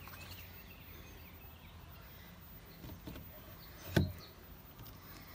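A wooden flagpole knocking into a white plastic wall-mounted flag bracket: a light knock about three seconds in, then one sharp knock about four seconds in as the pole seats in the holder.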